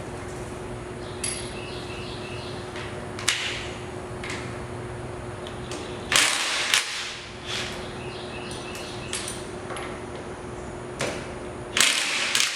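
Sharp metallic clanks and knocks from hand tools and parts being handled during work under a car's rear end, over a steady low hum. The loudest knocks come in a quick pair about six seconds in and again near the end.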